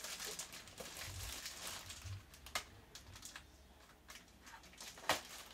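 Faint rustling and crinkling of a black plastic bin bag being handled and opened, louder in the first couple of seconds, with a few sharp ticks later on.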